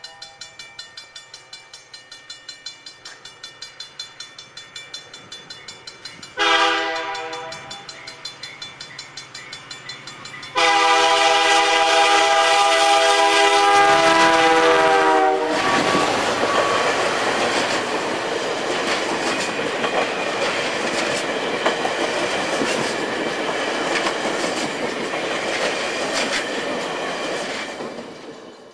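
VIA Rail F40PH-2D diesel locomotive sounding its air horn, a chord of several tones: one short blast, then a long blast of about five seconds. The locomotive and its stainless steel coaches then pass close by with steady wheel and rail noise that fades near the end. A faint rapid ticking comes before the horn.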